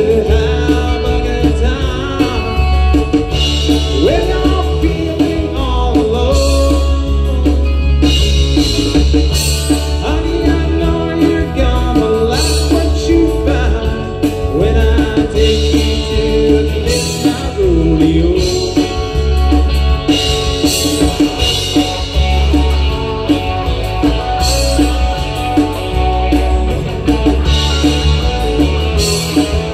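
Live rock band playing a song through a PA: bass guitar, electric guitar, drum kit with cymbals, and keyboard, with a lead singer.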